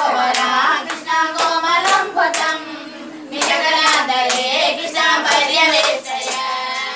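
A group of women singing a devotional song together while clapping their hands in a steady rhythm, about two claps a second.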